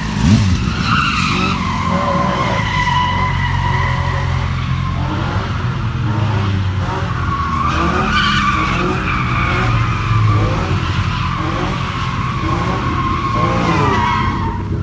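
A car's tyres squealing continuously under wheelspin, over the steady rumble of its engine held at high revs, as in a burnout or donuts.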